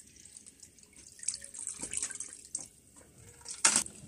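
Water sloshing and splashing in a plastic basin as meat is washed by hand, in irregular small splashes with a louder splash near the end.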